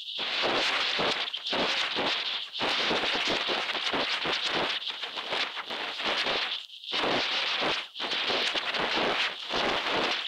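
Steady crackling hiss inside a high-altitude balloon payload box during the climb, cutting out briefly several times.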